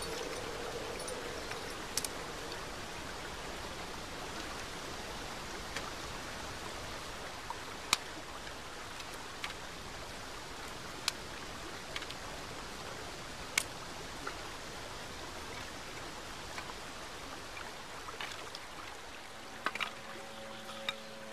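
Steady rush of running river water, with a few sharp clicks scattered through it.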